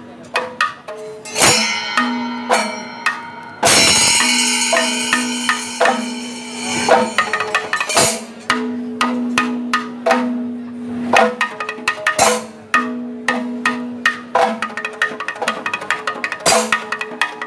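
Maddalam, the Kerala barrel drum worn at the waist, played with the hands in a fast, dense run of sharp strokes over a steady low tone. About four seconds in a loud metallic ringing wash comes in and fades over a couple of seconds.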